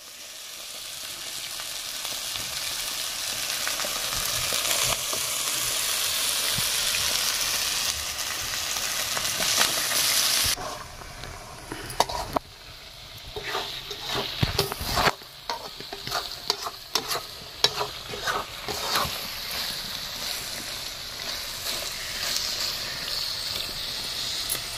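Raw chicken pieces sizzling as they go into hot fried masala in a metal pot over a wood fire, the hiss building over the first ten seconds and cutting off suddenly. Then a metal spatula scrapes and knocks against the pot as the chicken is stirred and seared in the masala, over a lower, steady sizzle.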